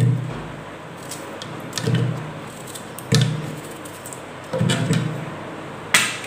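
Raw green mango being cut with a knife, the pieces dropping into an empty plastic mixer jar. Each piece lands with a dull thud, four or five times about a second or so apart.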